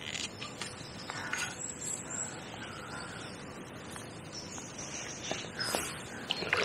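Birds calling over a steady outdoor hiss, with a few faint clicks near the end.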